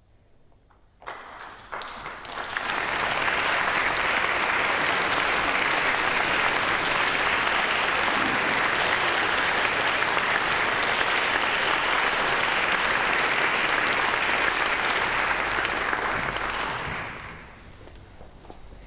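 Concert audience applauding: a few scattered claps about a second in build quickly into dense, steady applause, which dies away near the end.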